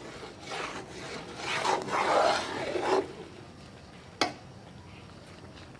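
Slotted metal spatula scraping and stirring thick chana daal halwa around a metal pot, a run of scraping strokes for about three seconds. A single sharp click about four seconds in.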